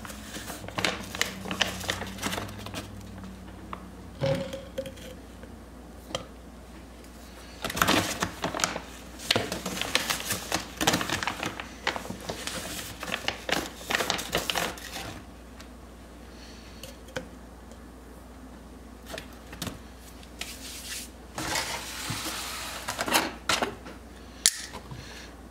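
Plastic clicks, taps and scrapes of a protein-powder scoop working in the tub and against a plastic shaker bottle, coming in three spells of quick rattling separated by quiet.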